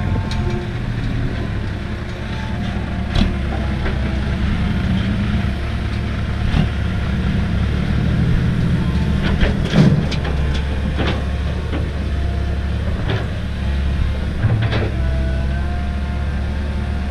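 Diesel engines of a Komatsu excavator and a dump truck running steadily, with scattered knocks and clatter of soil and rock dropping into the truck's steel bed, the loudest a little past halfway.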